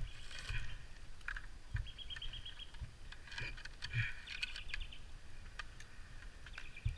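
Small birds chirping: single chirps and a quick run of repeated notes, with a few low knocks and rustles of handling.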